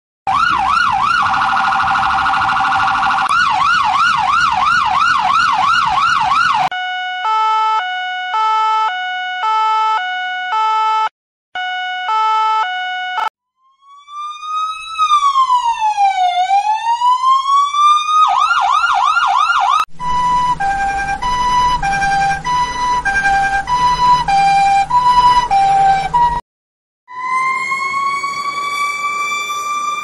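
A run of US emergency-vehicle sirens (police, ambulance, fire truck), one after another with short breaks: fast yelping sweeps, alternating two-note hi-lo tones, a slow wail that falls and then rises, and near the end a siren winding up in pitch.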